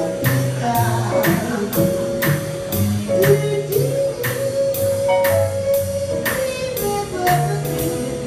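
Live jazz: a woman sings into a microphone over a walking upright bass, holding one long note around the middle, while a cymbal taps a steady beat of about two and a half strikes a second.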